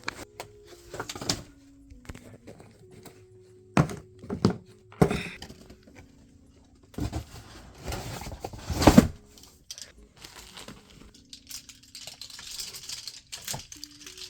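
Soft background music with a slow melody, over rustling, knocking and thudding as things are handled and put away by hand. The handling noise comes in bursts, loudest about seven to nine seconds in.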